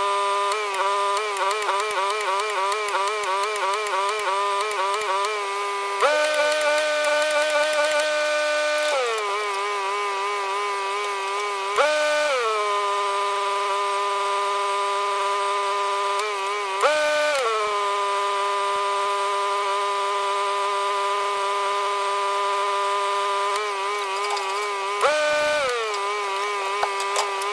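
A small petrol engine running fast and steady. It wavers in the first few seconds, then is revved up briefly four times, each time falling back to the same speed.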